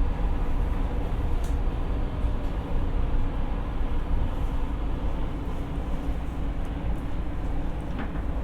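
Siemens P2000 light rail car running, heard from inside: a steady low rumble of wheels on rail and traction equipment with faint steady tones, easing slightly quieter toward the end.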